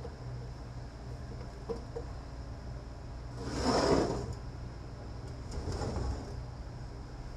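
Metal parts of a BorgWarner 1356 transfer case scraping and sliding as the stuck case is worked loose: one louder scrape about three and a half seconds in, a fainter one around six seconds, over a low steady hum.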